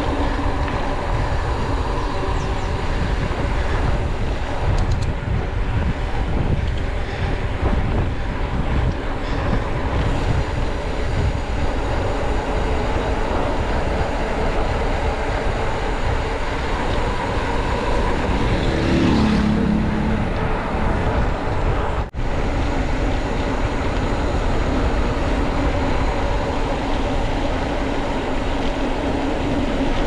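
Motorcycle engine running steadily under way, with heavy wind and road rumble on the microphone. The engine revs up briefly about two-thirds of the way through, and the sound cuts out for an instant soon after.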